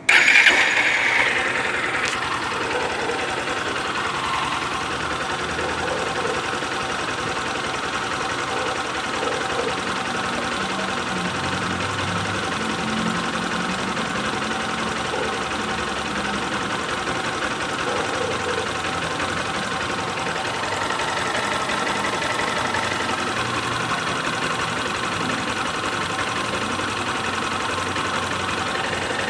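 Honda CG 160 Start's single-cylinder air-cooled engine idling steadily, loudest in the first second or so, carrying a mechanical noise that the owner is unsure is normal.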